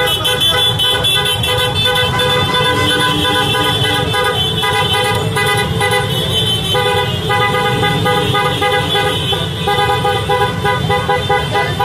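Many motorcycle and scooter horns honking at once in long, held blasts of several different pitches, breaking off briefly a few times, over a low rumble of idling engines.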